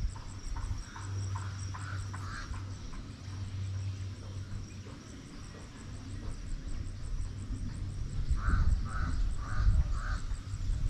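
A bird calling in runs of short, harsh, evenly spaced notes, about two a second. One run of about six notes comes near the start and another of four comes near the end.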